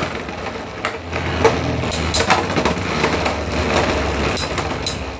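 Two Beyblade X spinning tops whirring in a plastic stadium, with several sharp clacks as they collide.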